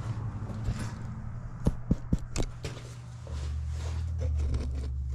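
Handling noises: a few short clicks and taps as caps and an oil bottle are handled, then a steady low hum from about three seconds in.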